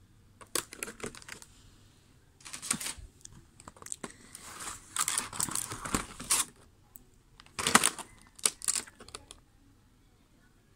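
Clear plastic trays of a colored-pencil set being handled and turned: plastic crinkling and clicking in four short bursts with quiet gaps between.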